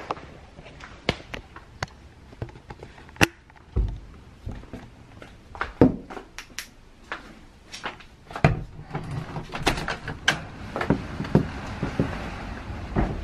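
Sharp knocks and clicks with a few heavy door-like thuds, over a steady rush of hurricane wind and rain that grows louder from about eight seconds in.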